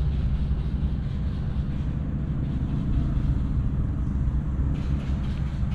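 Steady low drone of a drainage pump's engine pumping floodwater out of the trench.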